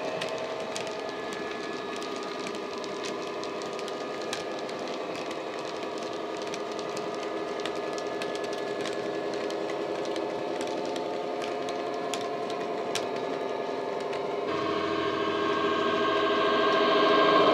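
Model Class 66 diesel locomotive's ESU LokSound sound decoder playing a steady diesel engine drone through an EM2 speaker, with light clicks from the model wagons' wheels on the track. About three-quarters of the way through the sound jumps louder and keeps rising as the locomotive draws closer.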